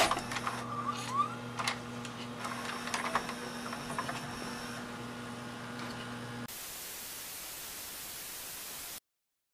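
The tape mechanism of a VCR with a VHS cassette loaded runs with a steady motor hum, scattered mechanical clicks and a brief rising whine about a second in. About six and a half seconds in it gives way to the even hiss of TV static, which cuts off suddenly shortly before the end.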